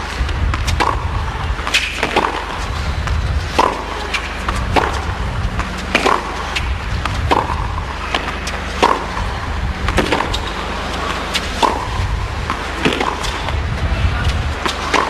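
A tennis rally: a ball struck back and forth by rackets, one sharp hit about every second and a quarter, over a steady low hum.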